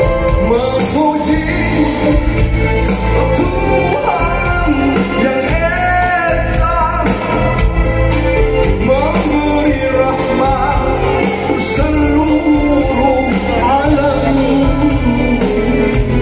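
Live band playing an Islamic devotional song with a man singing a wavering, gliding melody into a microphone, amplified through the hall's sound system and heard from among the audience.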